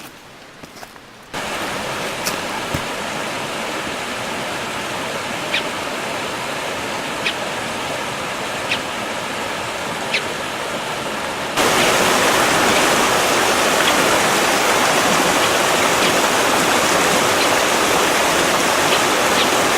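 Running water of a stream, a steady rushing hiss that jumps suddenly louder about halfway through, with a few faint short ticks over it.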